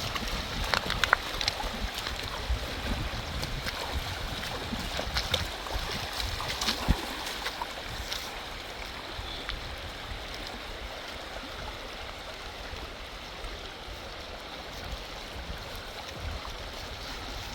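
Rushing water of a swollen river, a steady noise, with scattered rustles and knocks over the first half or so.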